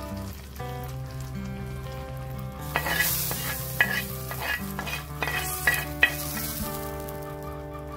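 Hot oil tempering with dried red chillies and curry leaves sizzling as it is tipped from a pan onto curry and scraped out with a wooden spatula, the spatula knocking against the pan several times. The sizzle swells about three seconds in and dies down after about six.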